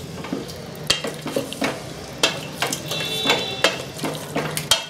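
Wooden spatula stirring chunks of chicken, potato and carrot in a stainless steel pressure cooker, knocking and scraping against the pot in irregular clacks, with a short metallic ring about three seconds in.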